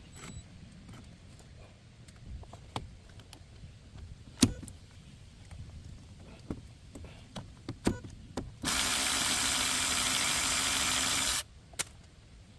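Scattered clicks and knocks of tools on brake parts, then a loud, steady hiss of pressurised spray lasting about three seconds, cutting off sharply.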